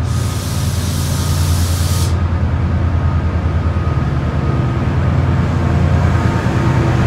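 Class 68 diesel locomotive's Caterpillar V16 engine running with a deep steady drone as it passes close by, getting louder. A hiss of air sounds for about the first two seconds.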